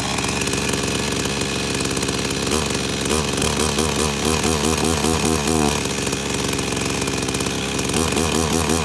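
Two-stroke chainsaw engine running on an old saw that had sat unused for years. Its pitch wavers up and down unevenly through the middle and again near the end.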